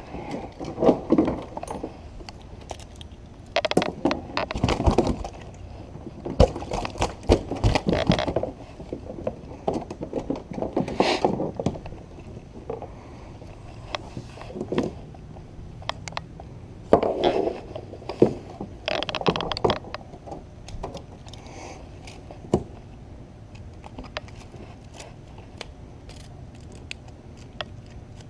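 Close-up handling noise in a plastic kayak: scraping, rubbing and clattering of hands and fishing tackle against the hull, in irregular bursts with short clicks between them.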